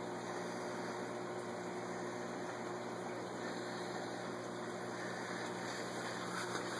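Saltwater aquarium's circulation running: a steady hum with a constant rush of moving water from the pump and sump.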